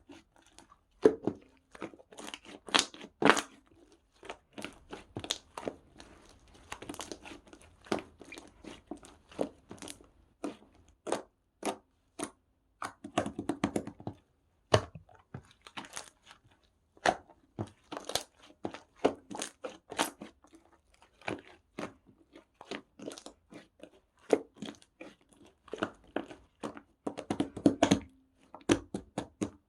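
Pink slime being squished and stretched by hand, making irregular sharp pops and clicks as air pockets burst.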